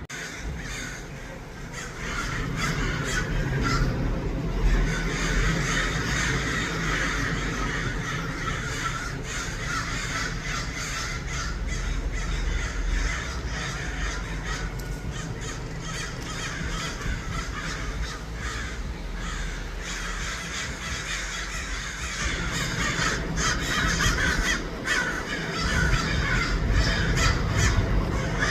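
A large flock of American crows cawing at once, a dense, unbroken chorus of overlapping caws, with a steady low rumble underneath.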